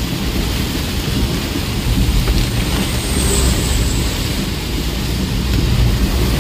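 Heavy tropical downpour drumming on the roof and windscreen of a moving car, heard from inside the cabin as a dense, steady hiss over a low rumble.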